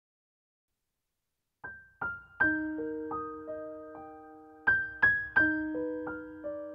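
Silence, then soft background music starting about a second and a half in: single pitched notes struck one after another, each ringing on and fading.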